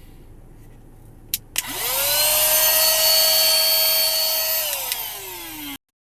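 Itutn cordless handheld car vacuum cleaner switched on with two clicks. Its motor whines up to speed and runs steadily with a rush of air for about three seconds, then falls in pitch as it winds down, until the sound cuts off abruptly near the end.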